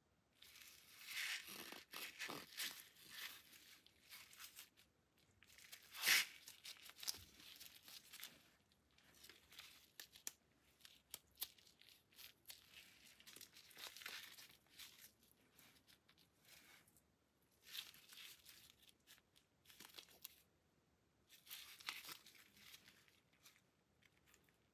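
Handling noise: gloved hands rubbing and shifting on a Taurus TX22 pistol in irregular spells of rustling, with one sharp click about six seconds in.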